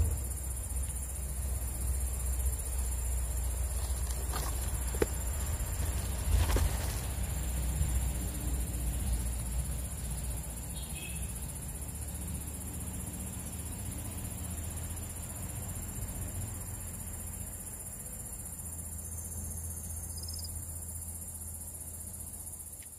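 Steady high-pitched insect drone from the riverside vegetation, with a low rumble underneath and a couple of faint knocks a few seconds in.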